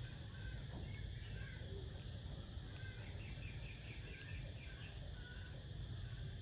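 Quiet background ambience with a steady low hum and faint, scattered short bird chirps, including a quick run of rapid notes about three seconds in.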